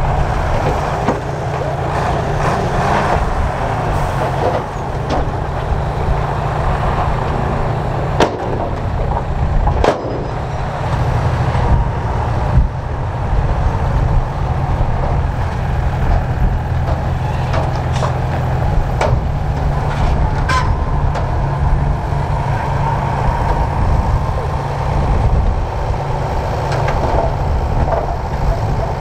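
Heavy diesel engine of road-building machinery running steadily, with a few sharp clanks scattered through.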